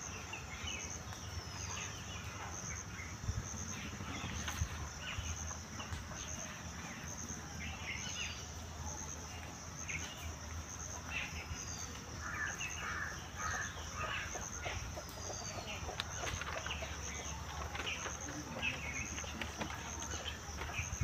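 Outdoor rural background of birds and insects. A steady, pulsing, high insect trill runs at about two pulses a second, a short falling bird chirp repeats every three to four seconds, and other scattered bird calls come and go.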